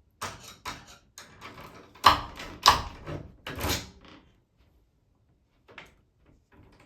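Stuck metal door latch being forced out of the door edge by brute force: a run of knocks, rattles and scrapes, the two loudest about two seconds in, then a pause with one small knock near the end.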